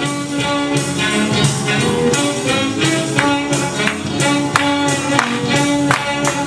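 Upbeat dance music with a steady beat: sustained instrumental notes over regular percussive strokes, about three a second.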